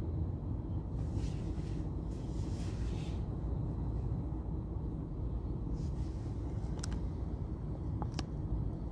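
Low, steady rumble of a car heard from inside the cabin while it waits and creeps forward, with a few faint clicks near the end.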